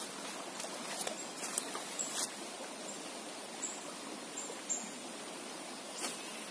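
Steady rush of fast-flowing creek water, loud enough to drown out the plopping of the popper lure being worked on it. A few short clicks stand out about a second in, at about two seconds and near the end.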